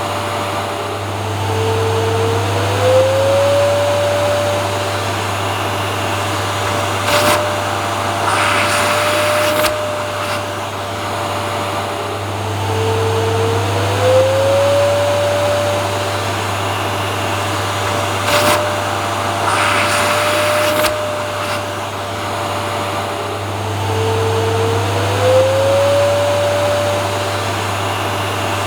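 Vacuum cleaner running steadily with a low hum, its motor tone rising in pitch about every 11 seconds, with occasional knocks and short rushes of air in between; the pattern repeats evenly, like a recording played in a loop.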